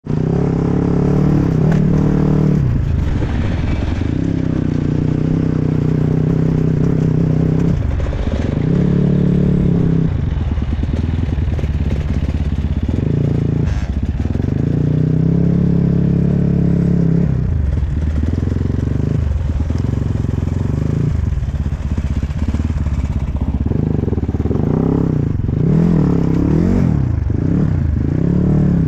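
Enduro dirt bike engine riding off-road, its pitch rising and falling repeatedly as the throttle is opened and shut, with quick blips of revs near the end.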